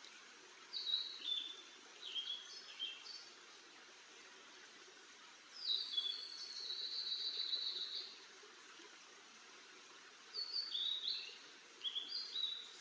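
A bird singing in three phrases of short, high, clear notes that step up and down. The middle phrase runs into a longer held note for about two seconds. Faint steady outdoor background hiss lies under and between the phrases.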